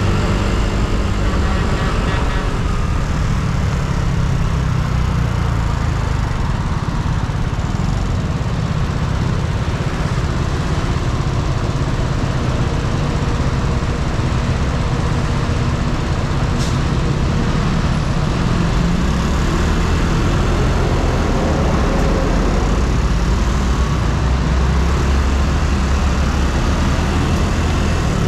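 Yamaha Cygnus X scooter's single-cylinder engine running while riding, under a steady rush of road and wind noise.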